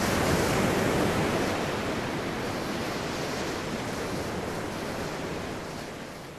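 Ocean surf washing onto a beach: a steady rushing noise that slowly fades out.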